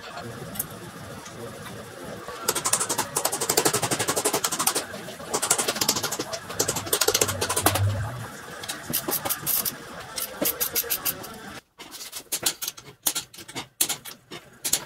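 Ratchet wrench clicking in quick, even runs as the R200 differential's bearing cap bolts are wound down, followed by scattered knocks and clunks of metal parts.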